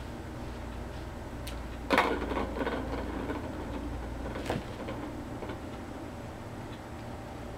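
Kittens playing on carpet: a sudden thump about two seconds in, followed by a second or so of scuffling, then a single sharp click a couple of seconds later, over a steady low hum.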